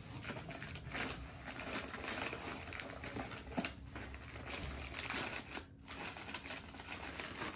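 Plastic packaging crinkling and rustling in irregular small crackles, with cardboard flaps shifting, as a camera in its protective wrap is pulled out of its box and unwrapped.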